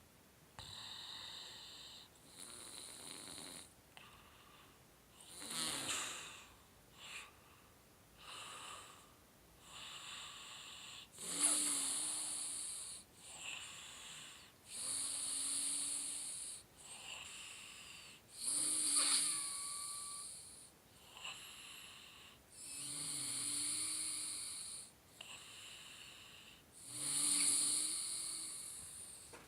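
Snoring: a long run of slow breaths in and out, each with a hissing, whistly edge. From about eleven seconds in the snores grow louder, coming roughly every four seconds with a low rasp in them.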